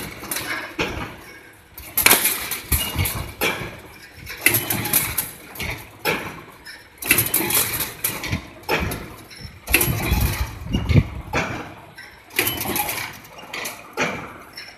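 Automatic wire mesh welding machine working through its cycle: a loud burst of clatter about every two and a half seconds as the electrode row welds another cross wire onto the line wires, with quieter machine noise between.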